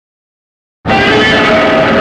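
Dead silence, then just under a second in a loud, harsh sound effect from the 1954–55 Godzilla films starts abruptly and holds steady: a rasping noise with several steady tones running through it.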